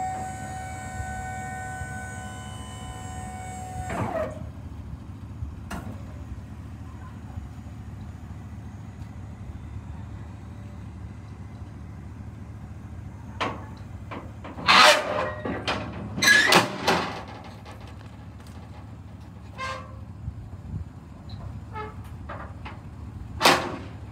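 Maxon Tuk-A-Way lift gate's electric hydraulic pump running with a steady whine, stopping with a clunk about four seconds in. Over the second half come loud metal clanks as the steel platform is folded and shoved into its stowed position.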